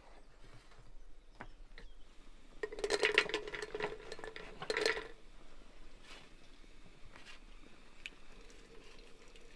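Small berries poured into a glass teapot, pattering and clinking against the glass in two bursts about two seconds apart, starting about three seconds in.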